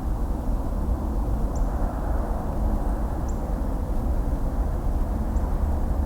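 Distant highway traffic: a steady, even rumble of passing vehicles, heaviest in the low end. A few faint, brief high chirps sound over it.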